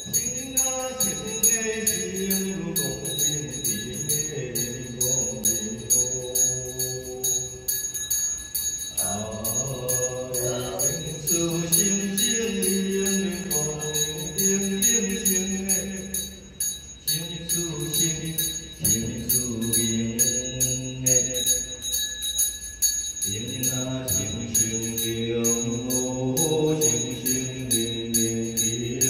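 Temple ritual chanting: voices intoning together in a low register, with a bell jingling steadily behind them. The chant breaks off briefly a few times.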